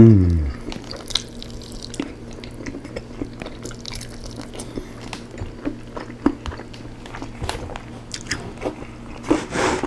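Close-miked eating of rotisserie chicken: wet chewing, lip smacks and small clicks as meat is torn from the bone by hand and bitten. It opens with a loud, falling "mmm" of pleasure, and near the end there is a breathy exhale.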